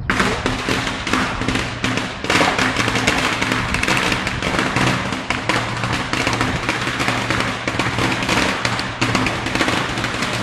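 A long string of firecrackers going off in rapid, continuous crackling, starting abruptly, with a steady low hum underneath.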